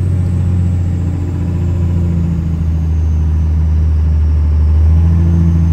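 Vehicle engine and road rumble heard from inside the cab while driving, a steady low drone that swells slightly a little before the end.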